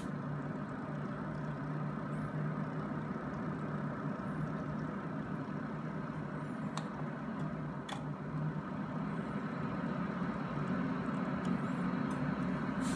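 IQAir HealthPro 250 air purifier running at fan speed 4: a steady rush of air over a low motor hum. A second hum tone joins and the sound grows slightly louder in the last few seconds. A few faint clicks.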